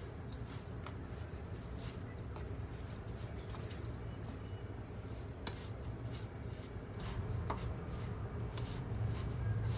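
A hand tossing and rubbing pieces of pork in dry cornstarch in a stainless steel bowl: soft, irregular rustling and scraping with light clicks against the bowl, a little louder in the last few seconds, over a steady low hum.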